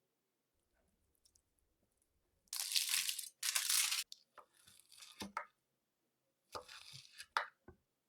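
Crunching of crisp food: two long crunches close together, a few short clicks and scrapes, then another crunch near the end.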